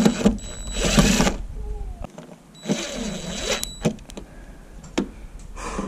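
DeWalt cordless drill-driver running in two bursts of about a second each with a steady high whine, driving a slightly larger screw through a camera bracket into the bus's sheet-metal skin because the first screw was loose in the hole. A few short clicks follow near the end.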